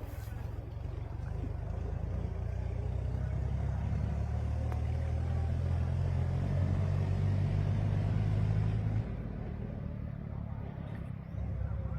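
A low engine drone that builds over several seconds and drops off suddenly about nine seconds in.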